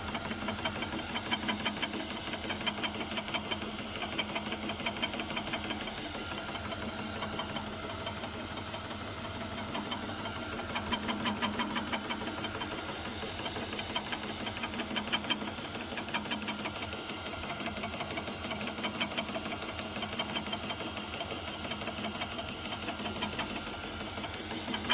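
An electric milling cutter running and cutting, a steady motor sound with a rapid, even pulsing. The loudness rises and falls every second or so as the cut goes on, and is lower for a few seconds in the middle.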